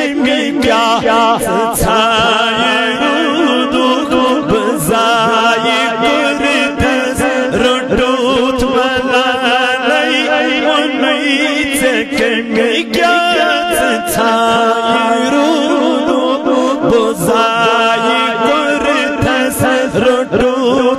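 A man singing a Kashmiri naat into a microphone, in long held notes whose pitch wavers and bends in ornaments.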